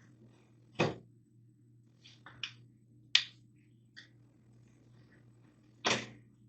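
Metal baking pan and crisper tray knocking and clattering as they are slid into the shelf slots of a countertop air fryer oven. There are about six short separate knocks, the loudest about a second in, over a faint steady hum.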